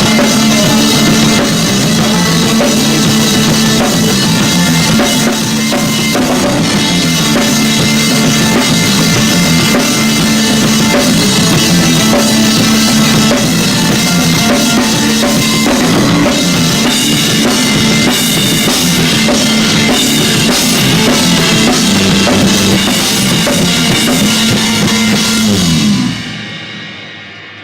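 Rock band playing live, with the drum kit loudest over bass and guitar; the band stops together near the end and the last chord rings out.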